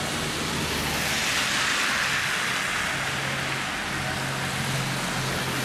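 Road traffic on a wet, slushy street: car tyres hissing on the wet road as vehicles pass, with a steady low engine hum coming in about three seconds in.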